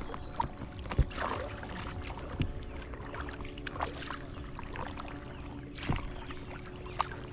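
Paddle strokes and water splashing and lapping, irregular, over a faint steady hum.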